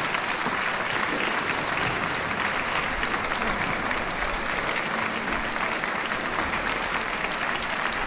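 Concert audience applauding steadily, a dense, even clapping that does not let up.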